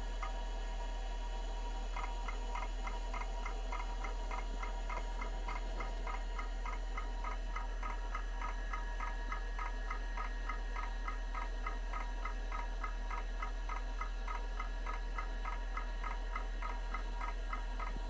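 Kalok KL343 Octagon IDE hard drive running a surface scan: a steady whine from the spinning drive, and from about two seconds in a regular ticking of the heads seeking, about four ticks a second.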